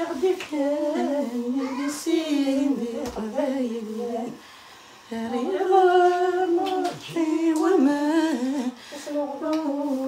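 A woman humming a melody in long held notes, breaking off for about a second near the middle, with a few short knocks.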